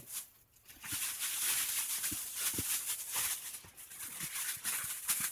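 Used pine-pellet cat litter and sawdust pouring out of a plastic litter box into a plastic bag. It is a steady gritty hiss that starts about a second in, with the bag rustling and a few soft knocks of the tray.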